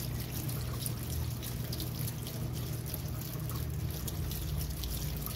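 Kitchen tap running steadily through a mesh strainer of seeds and splashing into a stainless steel sink, with a low steady hum underneath.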